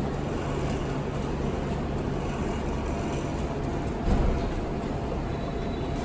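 A steady low machine hum and rumble, with a brief low thump about four seconds in.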